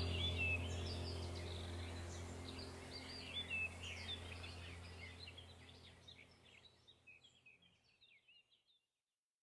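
Small birds chirping and twittering over a low, steady drone, with the whole soundtrack fading out to silence in the last few seconds.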